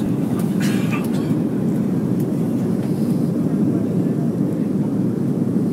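Steady cabin noise of a Boeing 737-300 airliner on approach: engines and rushing air as a low, even rumble.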